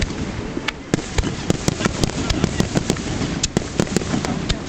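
Aerial fireworks going off: a quick, irregular string of sharp pops and bangs, several a second, over a continuous low rumble.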